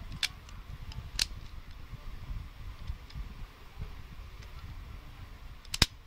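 Plastic clicks of a Gear Shift gear puzzle being twisted by hand: single clicks about a quarter second and a second in, then a louder double click near the end, over a low handling rumble.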